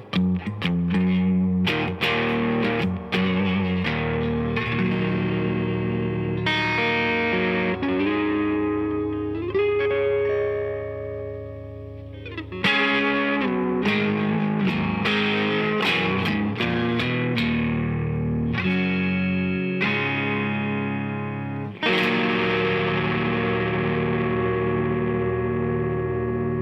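Stratocaster electric guitar with Fender Vintage '65 single-coil pickups played through a Mesa Boogie California Tweed amplifier. Quick picked notes and chords, a note bent upward a little before halfway, then big chords struck about halfway and again a few seconds before the end, each left to ring out.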